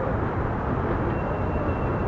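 CSX freight train rolling past: a steady low rumble of freight cars on the rails, with a faint high steady tone coming in about a second in.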